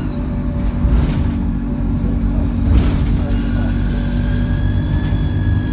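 ADL Enviro200 single-decker bus engine running under way, heard from inside the saloon, with a steady low drone. About halfway through, a high turbo whine builds gently and holds as the engine takes load. A couple of brief knocks from the bus body come in the first half.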